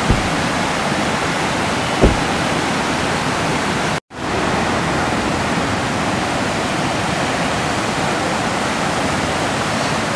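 Floodwater rushing and churning in rapids around stone bridge piers: a steady, loud roar of a swollen river. A brief low thump comes about two seconds in, and the sound drops out for a moment at about four seconds.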